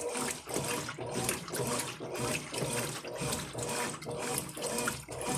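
Brastemp Ative 11 kg top-loading washing machine agitating a load of towels in water, a rhythmic swish-and-slosh about twice a second over a faint steady motor hum.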